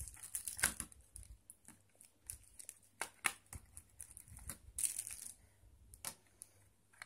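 Irregular small plastic clicks and crinkles as the snap-on plastic back cover of a Wickedleak Wammy One smartphone is pried off by hand.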